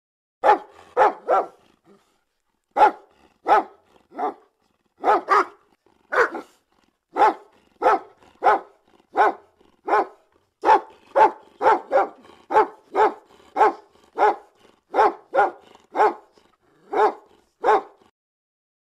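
Dog barking over and over, nearly thirty short, sharp barks, mostly one or two a second, with a pause of about a second near the start.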